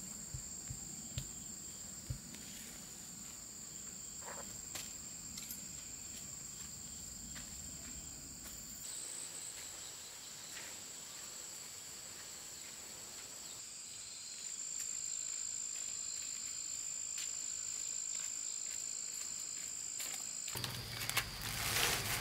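Steady high-pitched buzzing of insects. In the first couple of seconds there are a few light knocks and rustles, and near the end leafy greens are rustled and pressed by hand on a plastic sheet, the loudest sound.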